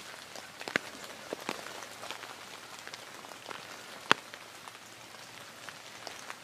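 Steady rain falling in woods, an even patter with scattered sharp drip-like ticks, the sharpest about four seconds in.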